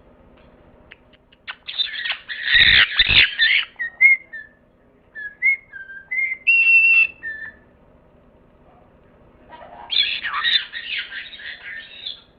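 Bird calling: two harsh, squawking bursts of a few seconds each, with a string of short whistled notes between them.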